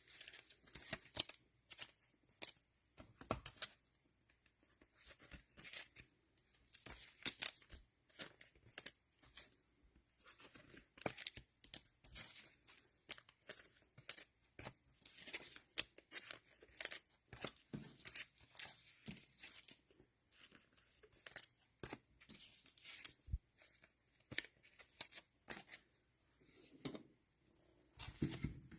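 Plastic cello wrappers of trading card packs being torn open and crinkled, with many short crackles and clicks as the packs and cards are handled.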